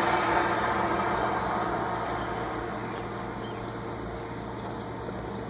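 An unexplained droning noise in the sky, made of several steady tones at once, fading away over the first two to three seconds and leaving a steady low hum and background noise.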